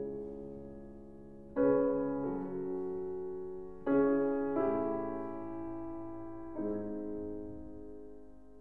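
Background music: slow solo piano, sustained chords struck a couple of seconds apart, each left to ring and slowly fade.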